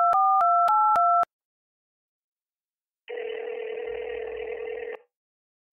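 Telephone keypad tones dialing a number: the last several quick two-note beeps, ending about a second in. After a pause comes a single telephone ringback tone over a hissy line, about two seconds long.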